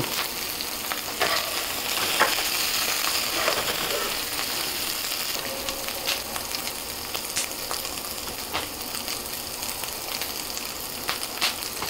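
Hot oil still sizzling steadily in the pan after the burner is turned off, with a steel spoon scraping and clicking now and then as the fish-roe bhuna is spooned into a serving bowl.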